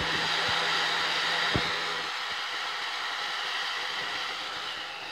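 Handheld hair dryer blowing steadily, with a brief knock about a second and a half in; it gets a little quieter after about two seconds.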